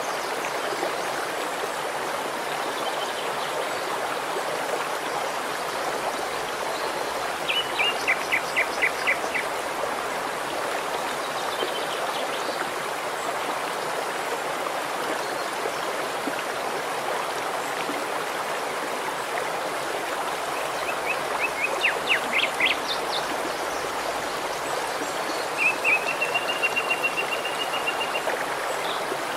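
Shallow, rocky stream running over stones: a steady, even rush of water. A songbird calls over it three times: a quick run of short notes about eight seconds in, another run a little past the middle, and a steady trill of about two seconds near the end.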